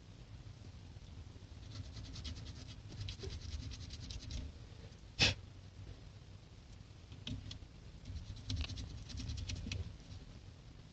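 Fine rapid scratching and small clicks from hands working on small car horn-button parts, in two runs, with one sharper click about five seconds in.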